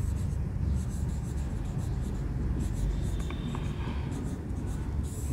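Felt-tip marker writing on a whiteboard: a quick run of short, scratchy strokes as a word is written out, over a steady low hum.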